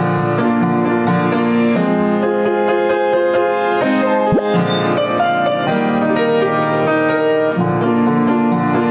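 Grand piano played in slow, sustained chords, with a new chord struck about every two seconds.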